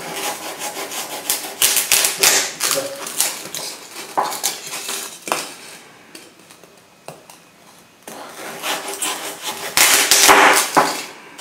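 Kitchen knife sawing through a block of stiff blue foam, a run of short rasping, crunching strokes. They thin out and grow quieter in the middle, then come back loudest near the end.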